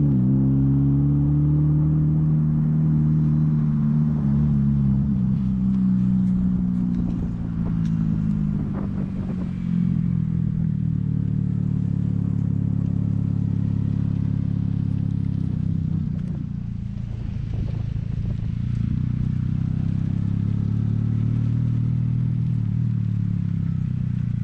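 An engine running steadily throughout, its pitch drifting gently up and down, with brief dips in level about a third of the way in and again past the middle.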